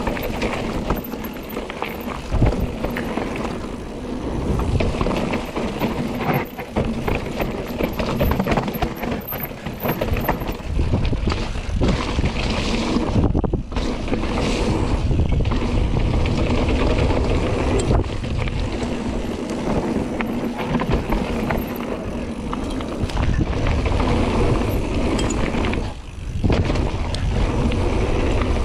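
Mountain bike riding fast down a rough downhill trail: tyres rumbling over dirt and the bike rattling, with wind buffeting the camera microphone and occasional knocks from bumps.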